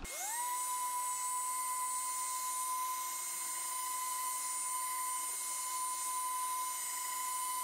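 Milwaukee variable-speed random orbital sander starting up and running on a low speed setting: a whine that rises over the first half second, then holds steady. It is driving a very fine Scotch-Brite pad, buffing a cured polyurethane coat before the next coat goes on.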